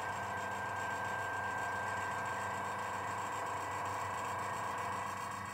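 A steady machine hum at an even level, made of several fixed tones.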